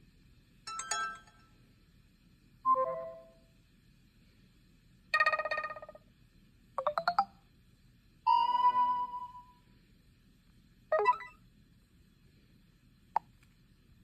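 Stock Android notification tones on a Huawei Premia 4G phone, previewed one after another from its notification-sound list: about seven different short chimes and jingles, each a second or less, with pauses between them.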